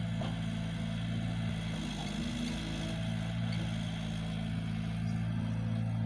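Diesel engines of tractors and an excavator running steadily at a low, even pitch, a heavy idling drone with a slight dip about two seconds in.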